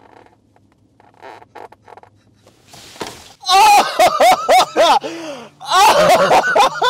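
A man's loud, high-pitched wordless vocalising in short rising-and-falling bursts, starting about three and a half seconds in, after a quiet stretch with only a faint low hum.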